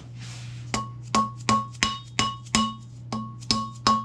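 Rubber hammer tapping on a length of PVC pipe to drive a seal into a hydraulic cylinder: even strikes about three a second, starting about a second in, each with a short pitched ring.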